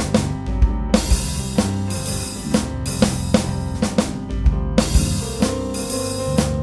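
Music with a steady drum-kit beat over held pitched notes and a bass line.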